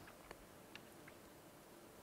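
Near silence: room tone, with a few faint ticks in the first second.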